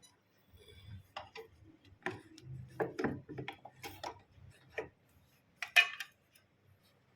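Irregular clicks and knocks of hard objects being handled, about a dozen over several seconds, the loudest a sharp cluster near the end.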